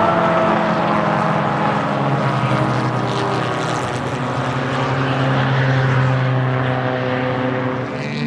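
Lada 2101 race car's 1.6-litre four-cylinder engine running hard at steady, high revs under load, its pitch holding nearly level. Near the end the sound dips briefly and the pitch shifts.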